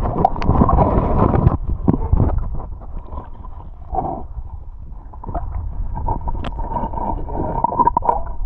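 Muffled underwater sound of river water around a submerged camera: a noisy rumble with scattered knocks and bumps from handling. It is loudest for the first second and a half, dies down through the middle, and grows busier again near the end.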